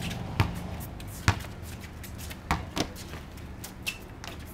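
Basketball bouncing on a concrete slab: a handful of sharp, irregularly spaced thuds.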